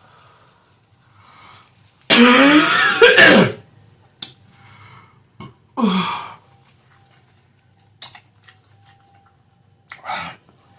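A woman coughing hard and clearing her throat: a loud, harsh fit about two seconds in lasting over a second, then two shorter coughs later. It is a reaction to inhaling a cayenne-hot butter sauce while eating.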